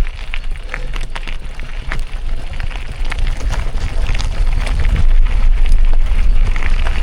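Wind buffeting the microphone during a mountain-bike ride on a gravel forest road, with tyres crunching over stones and the bike rattling in short clicks. A hiss grows louder near the end.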